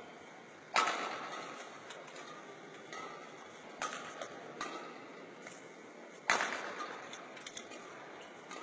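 Badminton rackets striking the shuttlecock, each sharp crack echoing in the hall: two loud hits about five and a half seconds apart, with softer hits between them.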